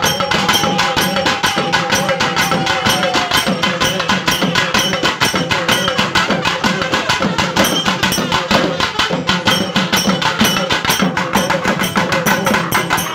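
Festival percussion ensemble drumming a fast, steady beat. For the first few seconds a long held note sounds over it, then fades out.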